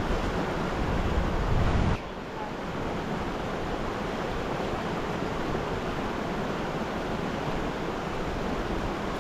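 Steady rush of flowing creek water. For about the first two seconds a low wind rumble on the microphone sits over it, then cuts off suddenly.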